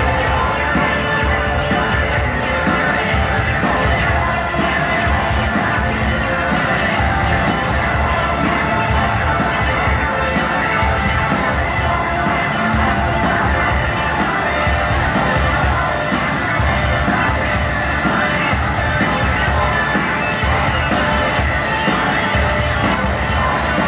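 Live rock band playing electric guitars and a drum kit through a stadium PA, loud and steady, heard from the crowd with crowd noise mixed in.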